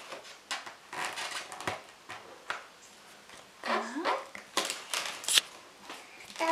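Latex modelling balloons rubbing and squeaking under fingers as they are handled and pressed, in several short bursts.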